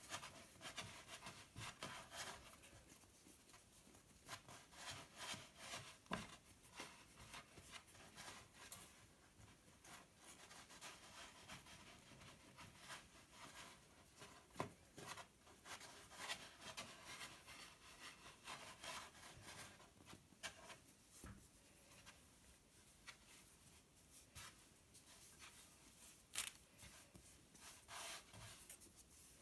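Hands kneading and shaping bread dough on a floured wooden board: faint rubbing and pressing, with soft knocks now and then.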